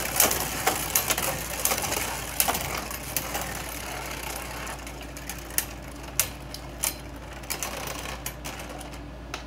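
Two Beyblade Burst spinning tops, Wonder Valtryek and Brutal Luinor, whirring and rattling against each other and the plastic stadium floor. The whirr grows steadily quieter as they lose spin, and a few separate sharp clicks sound in the second half as they strike each other.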